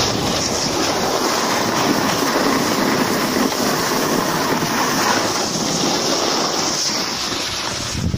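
Steady rushing of wind buffeting the microphone mixed with snow sliding and scraping under a rider going downhill.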